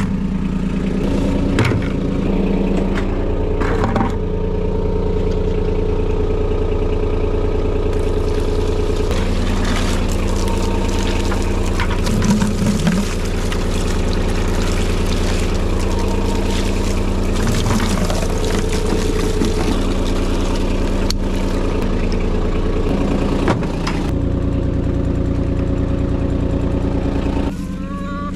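A vehicle engine running steadily. From about eight seconds in to about twenty-four seconds, a broad rushing noise plays over it.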